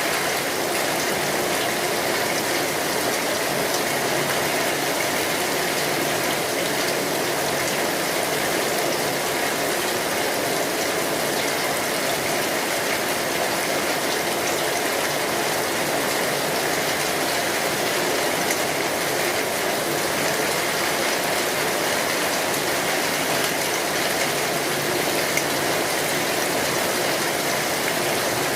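Steady rain falling on a metal roof, a dense, even hiss of drops, with small crackles from a wood fire mixed in.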